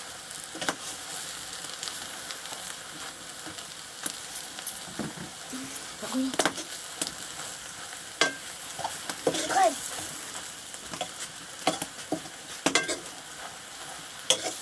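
Chopped leafy greens and potato pieces sizzling in a black wok (kadhai) while a metal ladle stirs and scrapes them, clinking against the pan about once a second.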